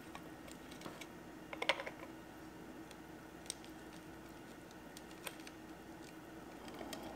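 A few light clicks and taps of clear ice pieces knocking together as they are fitted by hand, a small cluster about a second and a half in and single ticks later, over a faint steady hum.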